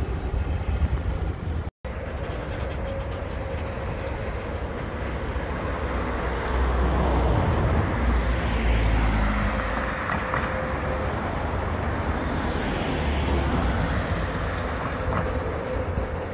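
Freight train of coal hopper cars rolling past: a steady rush and rumble of steel wheels on rail, louder and deeper in the middle, with a faint thin squeal running through it. The sound breaks off for an instant about two seconds in.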